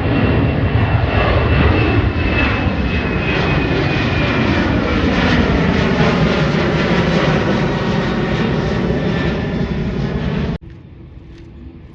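Jet airliner passing low overhead, its engines a loud roar with pitch lines sliding slowly downward as it goes by. The sound cuts off suddenly about ten and a half seconds in, leaving a much quieter background.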